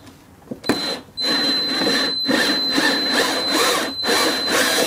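Cordless drill with a stepped bit boring into the hard plastic of a car's centre console, running with a steady high whine. It starts about half a second in and pauses briefly a couple of times.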